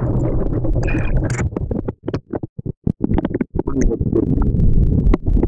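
Low, dense rumbling noise on the camera microphone, as from wind or handling, breaking up into crackling cut-outs with short silent gaps for about a second and a half, starting about two seconds in.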